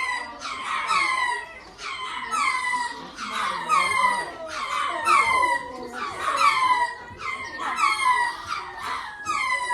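A group of lemurs calling in chorus: high calls, each falling in pitch, repeating and overlapping about once or twice a second.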